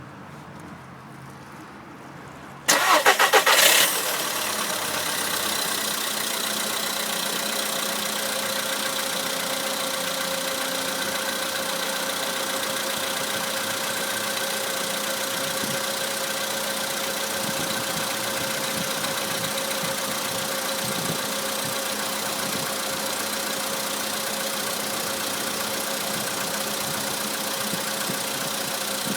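A VW Polo Sedan engine is cranked by the starter for about a second, about three seconds in, catches, and settles into a steady idle. The owner says a knock in this idle shows most on a cold engine and thinks it is an engine knock, though he says it is hard to be certain.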